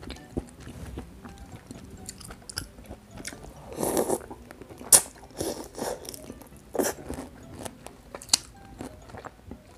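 A person chewing and biting food close to the microphone, in irregular wet mouthfuls with a few crisper crunches, the loudest about four and five seconds in.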